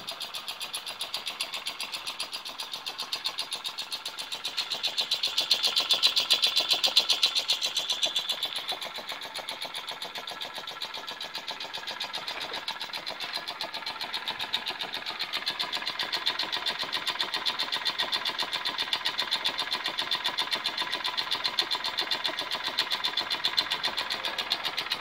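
Homemade air compressor running: a washing machine motor belt-driving a converted two-stroke trimmer engine cylinder as the pump. It makes a fast, even clatter of piston strokes while charging the welded tank, and swells louder for a few seconds about six seconds in.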